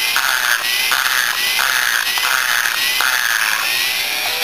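High-speed grinder spinning a carbide burr inside the exhaust port of a Yamaha Blaster two-stroke cylinder, grinding casting flaws and carbon out of the port. The cutting noise swells and fades in repeated strokes, about one every three-quarters of a second, over a steady high hiss, with the pitch rising again after each pass.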